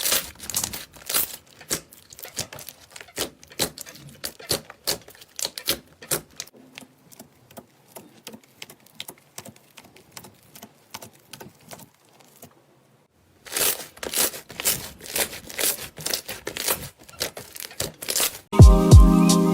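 Slime being squeezed and pressed by hand, giving rapid irregular clicks and crackles, with a brief pause about two-thirds of the way through. Music with a beat comes in near the end.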